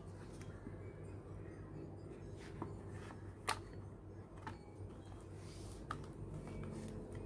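Faint taps and clicks of a thick cardboard jigsaw piece being lifted out of a board book and pressed back into its slot, with one sharper click about halfway through, over a steady low hum.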